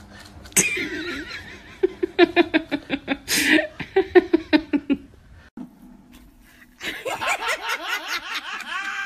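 A person laughing in quick repeated bursts of about four or five a second, then, after a short pause, another stretch of higher-pitched giggling.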